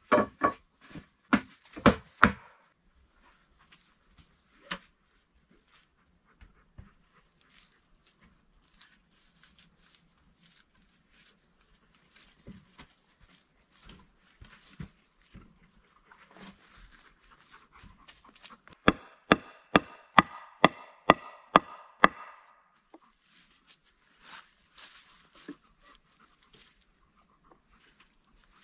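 Wooden knocks from log building with hand tools: a few sharp knocks at the start, one more a few seconds later, and a quick run of about a dozen blows, roughly four a second, about two-thirds of the way through, with faint handling of wood between.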